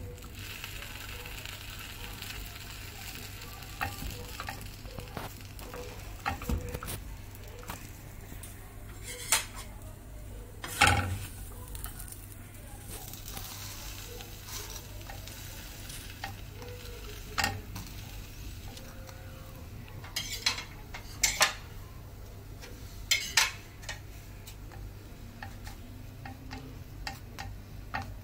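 A sandwich sizzling steadily in a flat griddle pan, with scattered taps and scrapes of a plastic slotted spatula pressing and turning it against the pan; one knock near the middle is the loudest.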